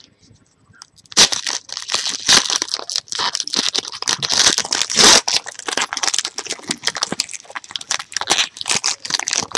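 A foil trading-card pack being torn open and crinkled in the hands: dense crackling with many sharp clicks, starting about a second in.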